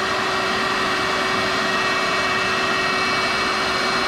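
Electric motor of a Kreg pocket-hole drilling machine running steadily: a constant whine over an even rushing noise.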